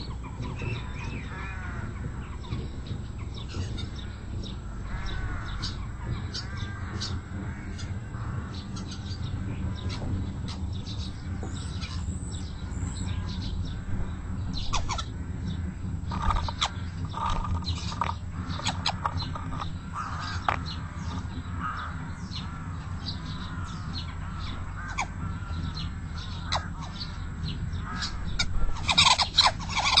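Garden birds singing and calling, with many short chirps and call notes, over a steady low background hum. A louder burst of calls comes near the end.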